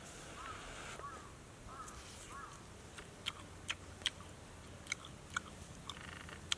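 Crispy fried fish being chewed: a run of sharp crunches in the second half. A few faint short squeaks come in the first half.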